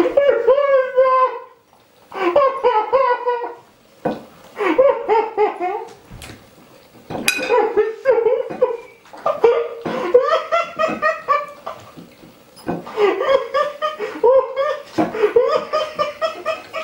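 Laughter in repeated pulsing bouts of one to two seconds, broken by short pauses for breath, with a sharp click about seven seconds in.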